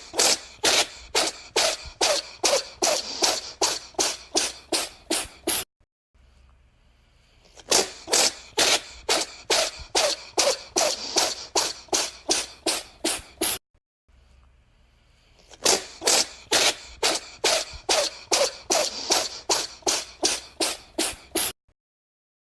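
A cat sneezing in rapid fits of about three sharp sneezes a second. There are three runs of five to six seconds each, and each stops suddenly.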